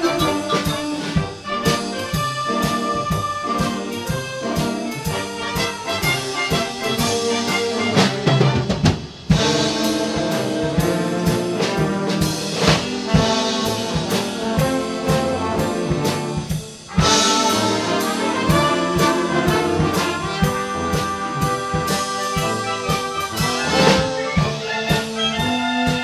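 Concert band playing an arrangement of film music, brass to the fore over a steady drum beat. The music breaks off briefly twice, about nine and seventeen seconds in.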